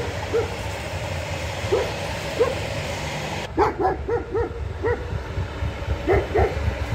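A dog barking in short barks, a few at first and then more often, some in quick pairs, over the low rumble of a passing passenger train.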